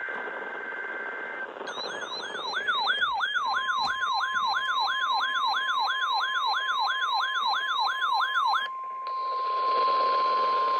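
NOAA Weather Radio test alert: a steady high data tone with hiss, then a weather alert receiver's warbling siren alarm sweeping about three times a second. Under the siren the steady 1050 Hz warning alarm tone begins, and it continues alone after the siren cuts off near the end.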